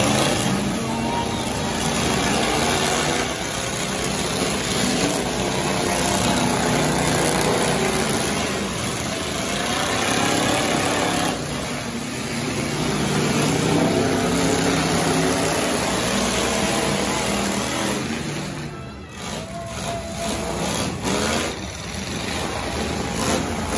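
Engines of several demolition-derby pickup trucks revving and running as they push and ram one another, the pitch rising and falling with the throttle.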